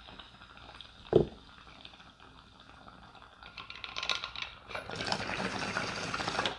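Glass beaker bong bubbling as smoke is drawn through its water, faint at first and building to a steady gurgle from about halfway through. One short thump about a second in.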